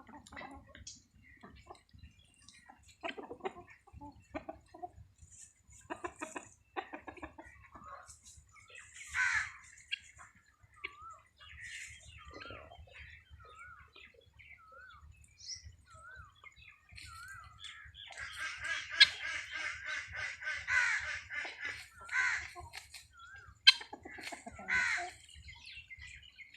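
Free-range chickens calling: scattered clucks and squawks, with a busier stretch of overlapping calls about two-thirds of the way through.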